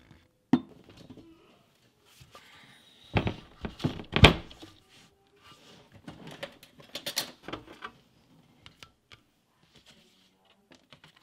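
Hard thunks and knocks of a heavy stone slab and a glass plate being set down on a workbench, the loudest about four seconds in, with lighter taps and clicks in between.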